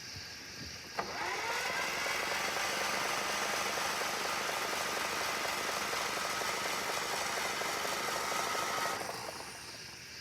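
Starter motor cranking a Clarktor tug's engine: a click about a second in, then a whine that spins up quickly and holds steady for about eight seconds before stopping.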